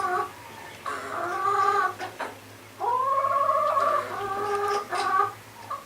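Chickens calling in the coop: several long, drawn-out whining calls, each about a second, one after another, with a couple of short clicks between them.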